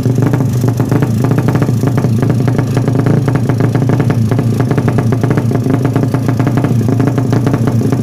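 Suzuki Satria FU single-cylinder four-stroke engine, ported and bored to 155 cc, running steadily while being warmed up, with a rapid pulsing exhaust note held at an even speed.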